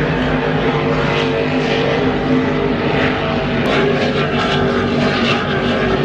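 Offshore racing powerboat engines running at speed: a steady, loud drone of several held tones.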